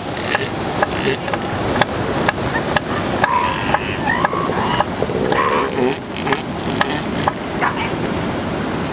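Northern elephant seals on the beach calling: short, high, bleating calls between about three and six seconds in, typical of pups, over a steady hiss of surf and wind. Scattered sharp clicks run throughout.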